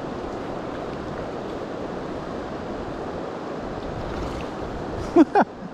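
Steady rush of river current with wind on the microphone, while a hooked trout splashes at the surface about four seconds in. Near the end, two short loud vocal exclamations.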